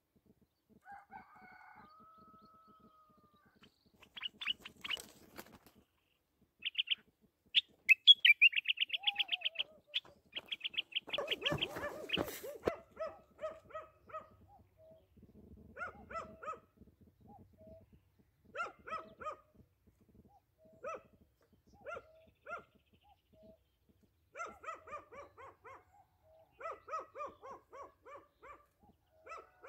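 A caged nightingale singing in separate phrases, fast runs of repeated notes and trills broken by pauses, the loudest run about eight seconds in. A brief rustle about eleven seconds in.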